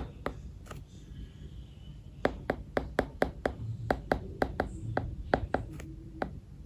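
Stylus tip tapping on an iPad's glass screen while handwriting: a run of sharp taps, a pause of about a second and a half near the start, then taps again at about three to four a second.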